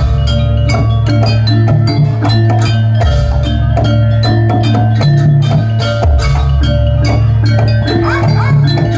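Javanese gamelan music accompanying a jaranan horse dance. Fast drum strokes run over struck metallophone notes, with deep gong tones changing about every three seconds.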